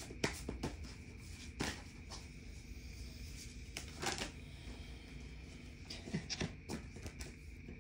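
Tarot cards being handled to draw one more card: a scattered series of short card flicks and taps, about eight in all and some in quick pairs, over a faint steady high-pitched hum.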